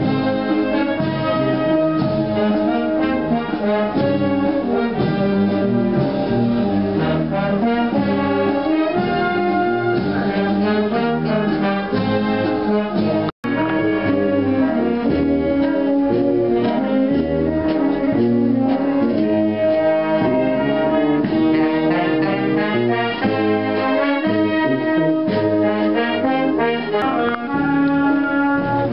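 Brass band playing a march tune, with sustained chords over a low tuba bass line. The sound cuts out for an instant about halfway through, then the music carries on.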